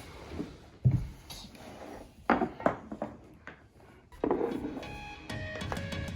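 Toy blocks being set down and knocked into place under a plastic toy-track ramp: a few sharp knocks and clatters with handling between them. Background music comes in during the last couple of seconds.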